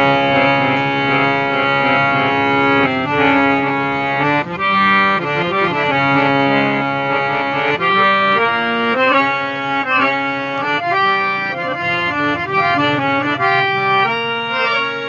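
Hand-pumped three-reed-set harmonium playing a melody over held lower notes, with its sustained reedy tone; the notes move faster from about four seconds in.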